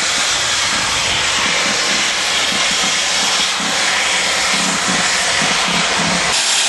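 Steam locomotive moving off slowly with its cylinder drain cocks open: a loud, continuous hiss of escaping steam, with faint regular exhaust beats about twice a second underneath.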